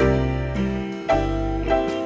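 Background music: a light keyboard tune with a bass line, new notes struck about every half second.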